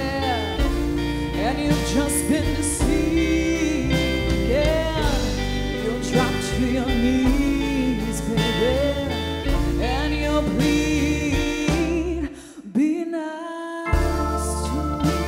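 A woman singing a song into a microphone over a karaoke backing track with bass and sustained chords. Near the end the accompaniment drops out for about a second and a half while her voice carries on, then the backing comes back in.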